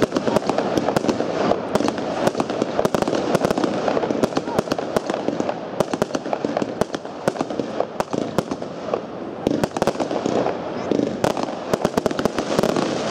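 Dynasty 'Stars over Paris' consumer fireworks cake firing a dense, irregular string of sharp bangs as its shots burst overhead.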